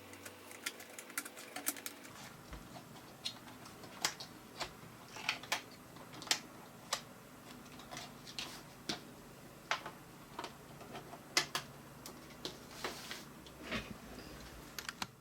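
Irregular small clicks and taps of hands handling parts while an SSD is refitted into a Mac mini G4, about one or two a second, over a faint steady hum that cuts off at the very end.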